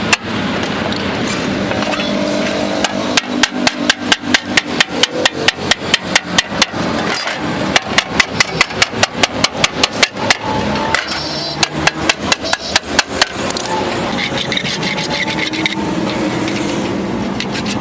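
Hammer striking car body sheet metal in quick runs of blows, about three or four a second, in three bursts with short pauses between them.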